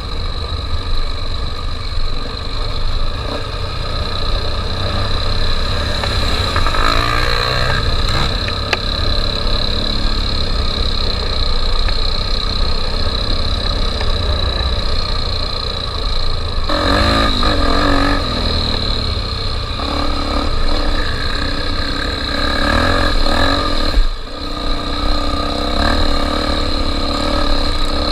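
Honda Tornado 250 trail motorcycle's single-cylinder engine running under way, its revs rising and falling, with a heavy rumble of wind on the microphone.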